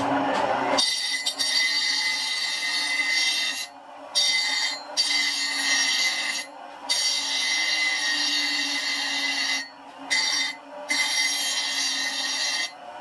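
Bench grinder's abrasive wheel grinding a leaf-spring steel knife blank, a steady high-pitched hiss over the motor's hum. It starts suddenly about a second in and breaks off briefly about six times.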